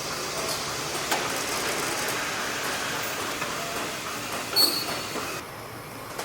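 Truck assembly-line factory noise: a steady machine hiss and hum with scattered metal clicks, and a sharp metallic clank with a brief high ring a little over four and a half seconds in.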